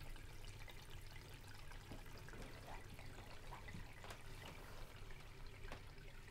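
Faint room tone: a steady low hum with a light hiss and scattered soft ticks.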